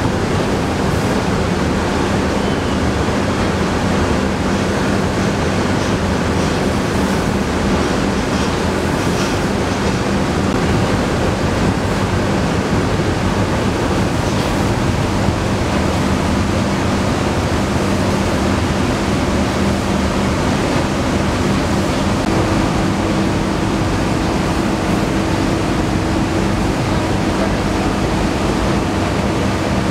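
Rice mill machinery running steadily: a loud, even rushing noise over a low hum, with a second, higher hum joining about two-thirds of the way through.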